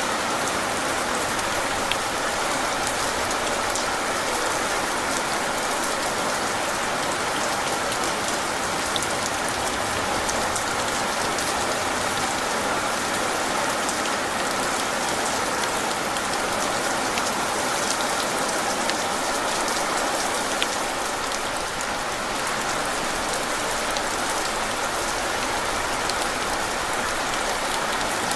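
Steady heavy rain falling on a surface, with scattered individual drops ticking through the constant hiss.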